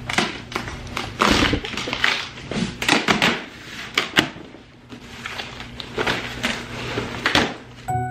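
Cardboard box being pulled open and unpacked: irregular rustling and crinkling of cardboard flaps and packing paper, with scrapes and a few sharp knocks, the loudest about four seconds in.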